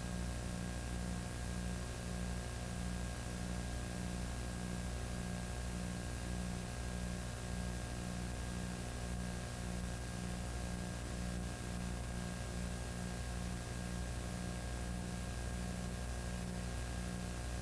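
Steady electrical hum and hiss with no other sound, with a low buzz in the hum pulsing about two or three times a second.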